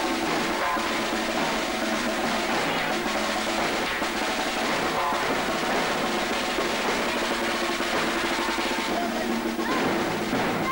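Processional band music: a snare drum playing rolls and beats under a steady melody from the band's instruments.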